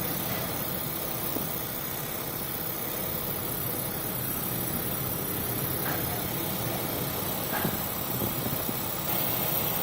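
Steady drone of a ship's engines and machinery, heard from on board, with a faint knock or two.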